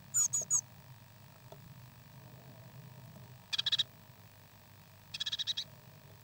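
Hatchling birds calling in high, thin peeps: three quick chirps at the start, then two short rapid stuttering runs of peeps, about three and a half seconds and five seconds in.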